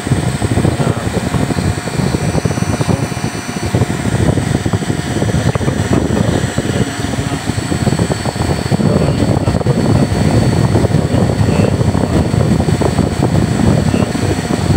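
Loud, steady machinery rumble with a few constant high-pitched whines running through it, swelling slightly louder about nine seconds in.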